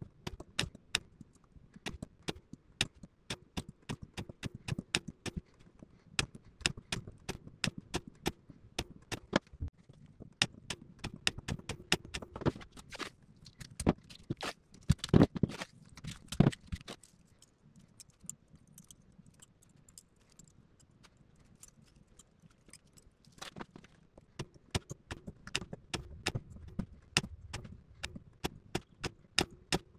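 Hands handling a pack of cylindrical lithium cells in plastic holders, with its cables, on a tabletop: irregular small clicks, taps and rattles, with a few louder knocks about halfway through and a quieter stretch after them.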